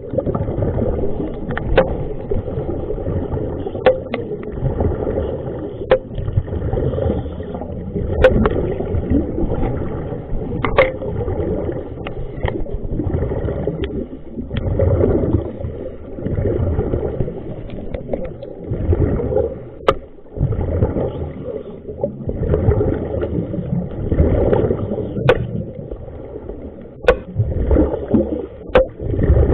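Muffled water sloshing and gurgling, with sharp clicks and knocks scattered throughout.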